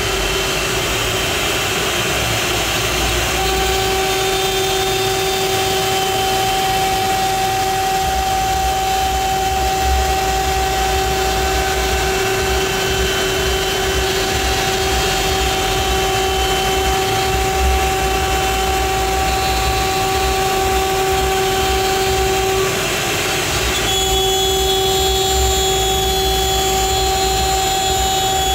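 CNC router spindle milling a wooden sheet: a steady whine over a loud rush of cutting noise. The whine drops out for about a second near the end, then comes back.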